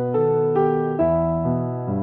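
Slow, calm electric piano music: soft chords and notes changing about every half second, each fading gently.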